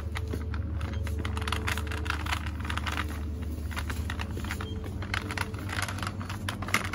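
Irregular light clicks and rattles with no speech, over a steady low hum of supermarket refrigerated display cases.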